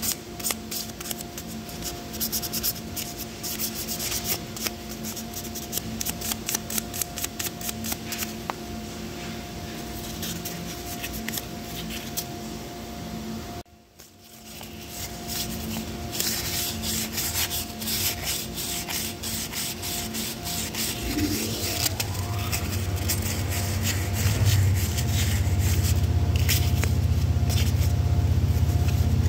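Sandpaper rubbing by hand on the small steel parts of an air impact gun's vane motor: quick repeated scratchy strokes, cleaning off the dirt that had the vanes sticking. The rubbing breaks off briefly about halfway. From about two-thirds through, a low steady hum swells in and becomes the loudest sound.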